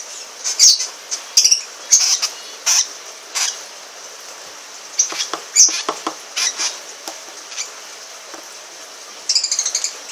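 Lovebirds giving short, high, squeaky chirps, scattered one or two at a time, then a quick run of about eight chirps near the end.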